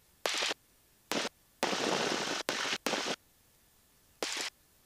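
Aircraft intercom audio with the headset microphone's squelch opening and cutting off: about six short bursts of hiss that start and stop abruptly, with near silence between them.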